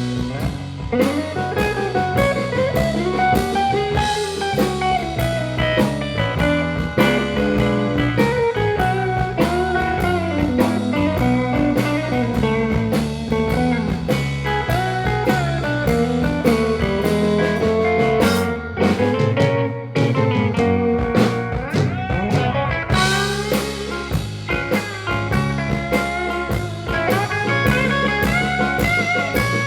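Live country band playing an instrumental passage: a lead guitar line with bending notes over bass and drum kit.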